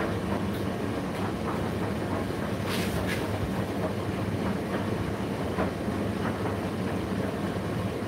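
Indesit IDC8T3 condenser tumble dryer running mid-cycle: a steady drum-and-motor hum with scattered light clicks, one sharper click a few seconds in.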